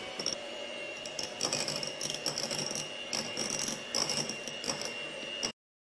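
Electric hand mixer running steadily with a constant whine, its beaters whipping cream and cream cheese together, with irregular clicks throughout. It cuts off suddenly about five and a half seconds in.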